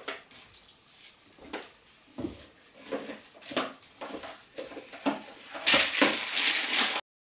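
Crinkling and clattering handling noises, scattered clicks that grow denser and louder near the end, then cut off abruptly.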